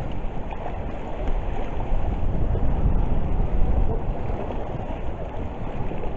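Wind buffeting the camera's microphone: a steady low rumbling rush that rises and falls without a break.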